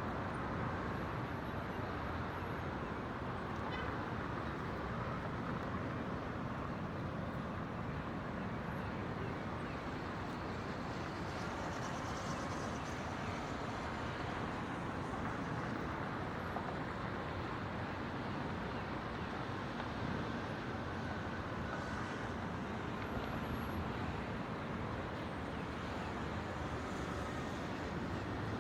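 Steady hum of distant city traffic, an even wash of road noise with no single vehicle standing out.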